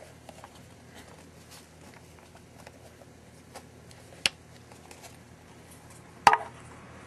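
Hands handling and working open a sealed trading card box: faint rubbing and small ticks, a sharp click about four seconds in, and a louder snap a little after six seconds.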